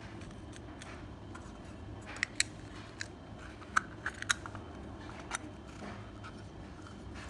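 A run of small sharp clicks and taps from a clear plastic container being handled, with metal fishing-hook rigs inside it, starting about two seconds in, over a steady low hum.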